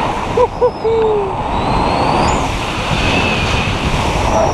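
Wind rushing over the camera microphone in tandem paraglider flight. About half a second in, a person lets out two short hoots and a longer whoop.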